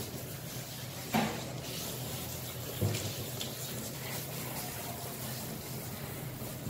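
Water spraying from a hand-held hose sprayer onto a Siberian husky's coat, wetting the body, a steady hiss. Two short knocks come about a second in and about three seconds in.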